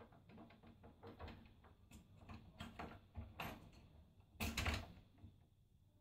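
Faint, irregular clicks and knocks of plastic parts as the replacement door handle, spring and latch are fitted into a Samsung WD8704EJA washing machine door and the hinge pin is pushed down through them. A louder rattle comes about four and a half seconds in.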